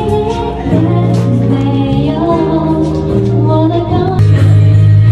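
Background pop music with a singing voice over held notes and a bass line that changes about once a second.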